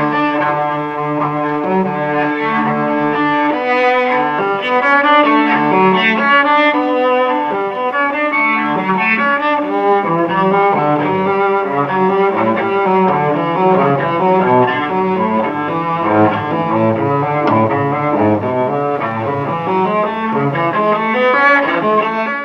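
Instrumental background music: a continuous flow of low and middle notes changing steadily, with no voice.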